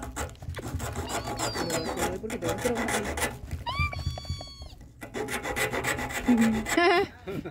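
A knife blade scraping and rasping against the shell of a calabash (tapara) gourd, in a run of short rough strokes, as the gourd is shaped into a totuma bowl. A brief high call cuts in about halfway through.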